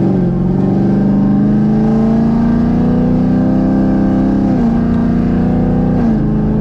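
Engine of a full-bolt-on, E85-tuned 6th-gen Camaro 1LE pulling from inside the cabin. Its pitch rises slowly, drops at an upshift about four and a half seconds in, then climbs and drops again at a second shift near the end.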